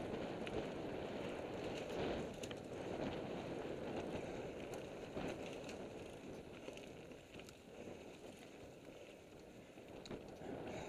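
Mountain bike riding fast down a rough dirt-and-stone forest singletrack, heard from a helmet camera: steady tyre and rushing-air noise with frequent sharp clicks and rattles from the bike. It eases off a little shortly before the end, then picks up again.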